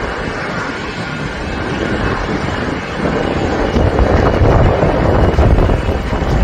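Jet airliner engines rumbling, growing louder about halfway through.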